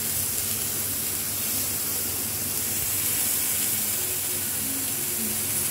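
A whole squid and beef sausages sizzling on a hot grill pan: a steady, even hiss.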